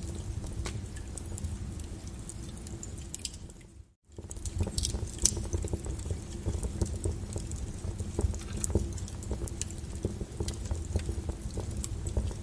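Small wood fire in a fireplace crackling, with irregular sharp pops and snaps over a low rumble of the flames. About four seconds in the sound fades out to near silence for a moment, then comes back in.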